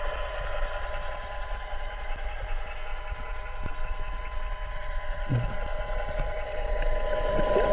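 Sea-Doo Seascooter RS3 underwater scooter's electric thruster running, heard underwater and muffled: a steady whine over a low rumble, with one short low thump about five seconds in.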